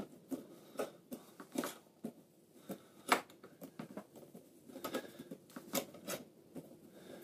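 Faint, irregular clicks and light metallic scrapes from a hand-turned spring compressor's threaded rod and handle as it backs off the tension on a spring-piston air rifle's mainspring, with one sharper click about three seconds in.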